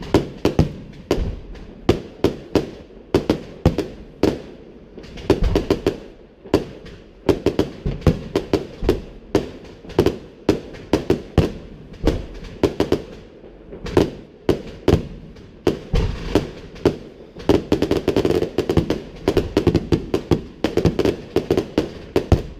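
Fireworks exploding in rapid succession, several sharp bangs a second with echoing tails. A dense patch of small crackling bursts comes about two thirds of the way through.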